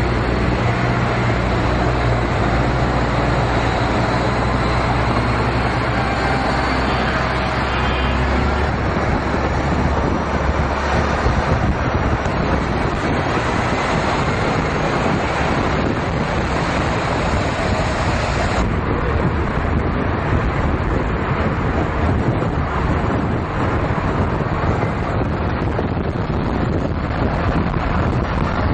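City street traffic: vehicle engines and tyre and road noise, with wind buffeting the microphone. A nearby engine's low hum stands out for the first eight seconds or so, then drops away.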